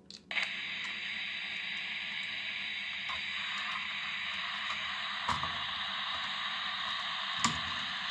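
Ben 10 toy walkie-talkie's speaker hissing with steady radio static, coming on suddenly about a third of a second in as its 9-volt battery clip is connected. A couple of short plastic clicks from handling the unit near the middle and end.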